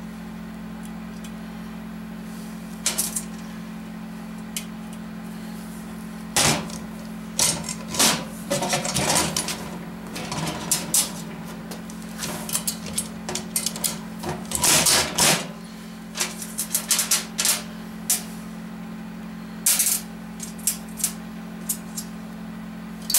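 Metal clicks and clatters of valve springs, retainers and the lever-type valve spring compressor being worked on a cast-iron 5.7 Vortec cylinder head: irregular sharp clinks, thickest in the middle stretch, over a steady low hum.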